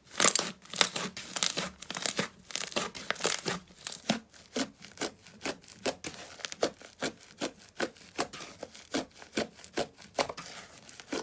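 Slime being worked by hand, making a run of short, sharp crackling squelches at about two to three a second.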